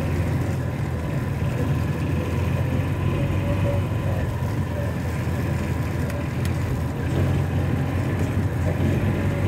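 John Deere Gator utility vehicle's engine running steadily under way, a low even drone with no change in speed.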